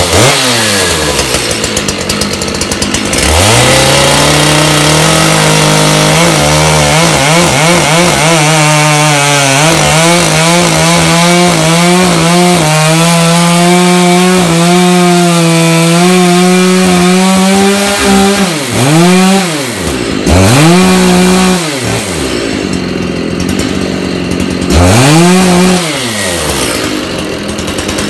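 Dolmar two-stroke chainsaw falls back toward idle, then is run up to full throttle about three seconds in and held there while it cuts through a log, its pitch wavering under load. Near the end it is let off and revved up again about three times.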